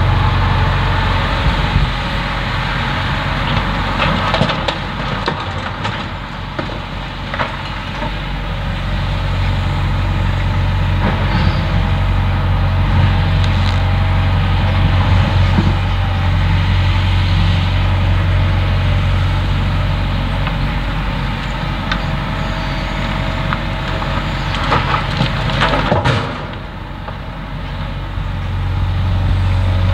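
Hitachi Zaxis 170W wheeled excavator's diesel engine running under hydraulic load as the boom and bucket swing. The engine eases off and picks up again twice, with scattered knocks and clatters from the bucket and rocks.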